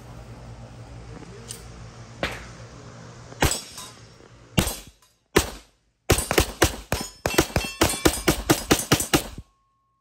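Shots from a Staccato .40 S&W pistol: three single shots, then a rapid string of about sixteen, roughly five a second, that cuts off suddenly near the end. A steady hum fills the first few seconds.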